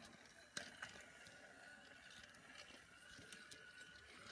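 Battery-powered Trackmaster Diesel 10 toy train's motor whirring faintly as it runs along plastic track, with a single click about half a second in.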